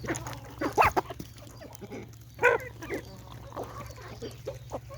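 Chickens clucking, with two louder squawks, a little under a second in and about halfway through.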